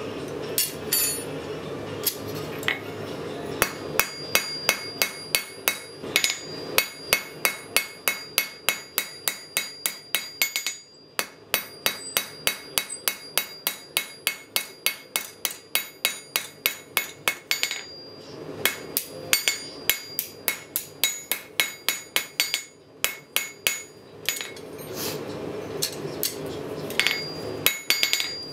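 Blacksmith's hand hammer striking a hot steel bar on an anvil, about three blows a second in runs with short pauses, each blow leaving a bright metallic ring from the anvil.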